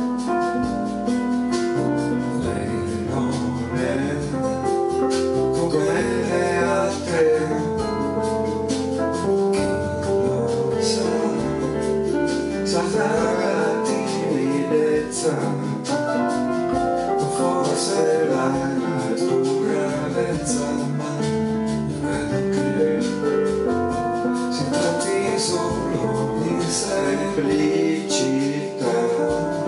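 Piano-led pop-jazz music: keyboards played with both hands in an instrumental passage, chords and a moving melody over a light rhythmic backing.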